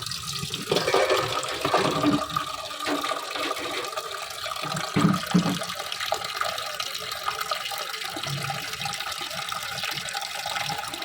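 Tap water running into a sink, with a few light knocks of things handled in the water.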